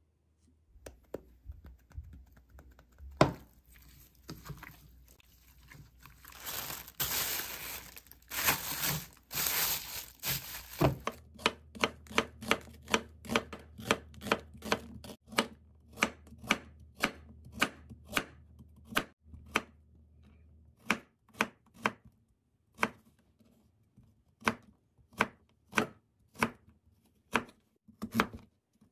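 A chef's knife chopping an onion and then a sweet potato on a wooden cutting board, sharp strokes about twice a second from about eleven seconds in. Before that, soft knocks and a stretch of wet mixing as marinating chicken is worked with a spoon in a bowl.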